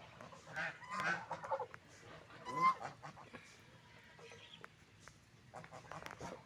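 Ducks quacking in a few short bunches of calls during the first three seconds, then a run of short, sharp clicks near the end.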